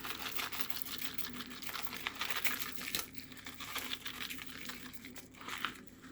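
Packet of dry onion soup mix crinkling and tearing as it is opened and handled, in a run of irregular crackles that eases off about halfway through.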